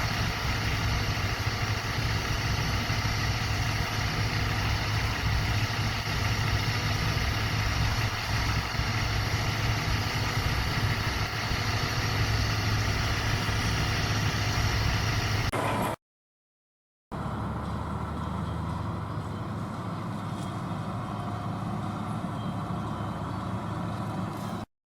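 Heavy diesel farm machinery running steadily at harvest, a constant drone with a strong low hum. It cuts out abruptly about two-thirds of the way in, and a quieter, steady machine sound follows until it cuts again just before the end.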